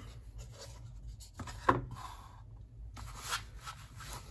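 A cardboard watch box being unpacked by hand: the outer sleeve slides off and the foam-lined lid is lifted, with faint rubbing and scraping of card and a couple of light knocks about one and a half seconds in.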